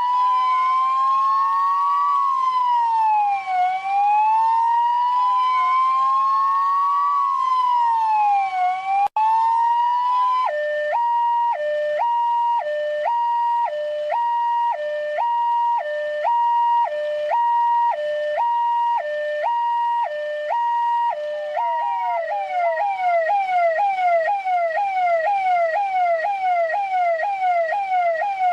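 Russian police car's electronic siren, switching through its modes. It starts on a slow wail rising and falling every couple of seconds, cuts out for an instant, then changes to a two-tone hi-lo alternating about once a second. Near the end it switches to a fast yelp of quick falling sweeps, two or three a second.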